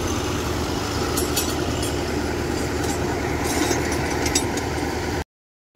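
Kubota DC-105X combine harvester's diesel engine running steadily while the machine is bogged in paddy mud, with some light mechanical clatter. The sound cuts off abruptly near the end.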